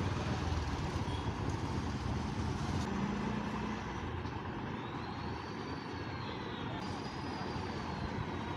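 Steady background noise of road traffic, with a faint high whistle that wavers in pitch during the second half.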